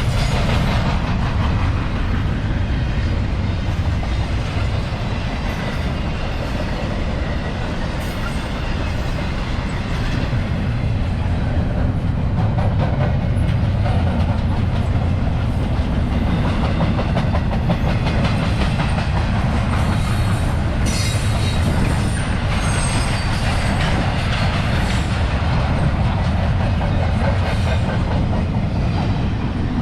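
CSX freight train rolling past, a steady loud rumble of railcars with wheels clicking over the rail joints.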